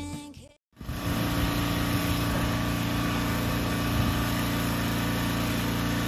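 Small petrol lawn mower engine running at a steady speed, starting abruptly about a second in.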